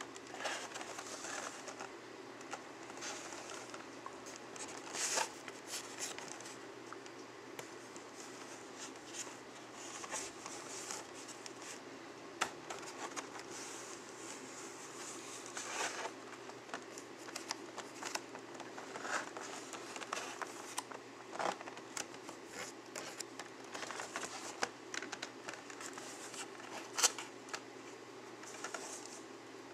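Clear plastic blister packs on cardboard action-figure backing cards crinkling and clicking as they are handled and turned over. The crackles are irregular, and one sharp click a little before the end is the loudest.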